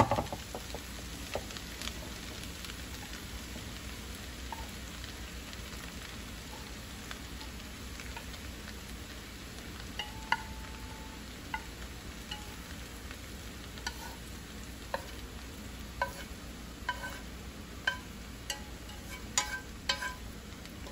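Stir-fry sizzling gently in a pan over lowered heat, with a wooden utensil scraping and tapping against a nonstick frying pan as vegetables are pushed out of it. The taps come more often in the second half.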